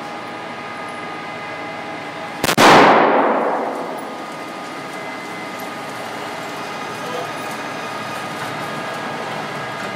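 A single shot from a Bushmaster AR-15 rifle about two and a half seconds in, its echo dying away over about a second and a half.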